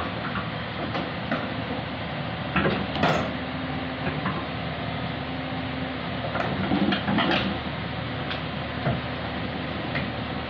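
Excavator's engine running steadily, with a scattering of sharp metallic clanks and knocks, loudest about three seconds in and again around seven seconds in.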